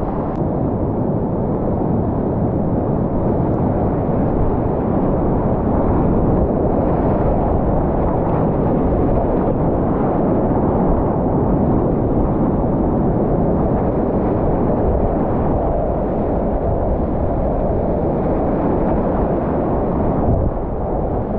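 Whitewater rapids rushing, a loud, steady roar of churning water heard up close from a kayak running the rapid.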